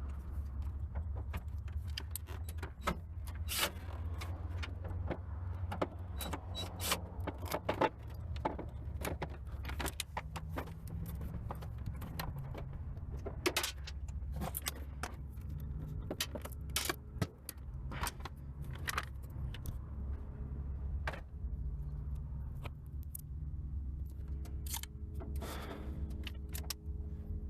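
Irregular clinks, knocks and rattles of hand tools against metal and plastic dashboard parts as a car's dash is worked loose, over a steady low rumble.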